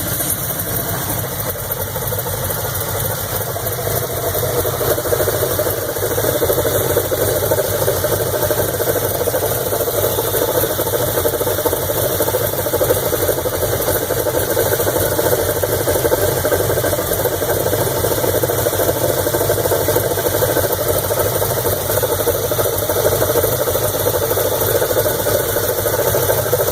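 GM LT1 V8 engine running steadily near idle, making an odd noise that is called weird; it gets a little louder about five or six seconds in.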